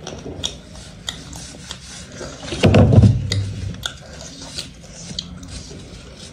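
Close-miked eating of roast chicken by hand: chewing and tearing meat, with many small clicks and crackles. A brief, louder low sound comes about three seconds in.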